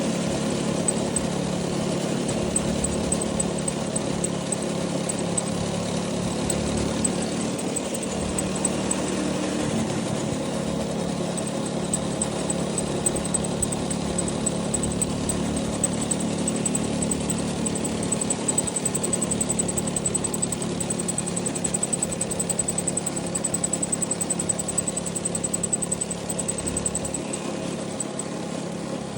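Go-kart's 212cc single-cylinder four-stroke engine idling steadily at a constant speed.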